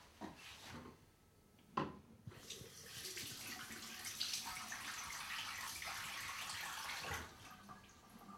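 A sharp knock about two seconds in, then a bathroom tap running water into the sink basin as a steady hiss for about five seconds, which stops near the end.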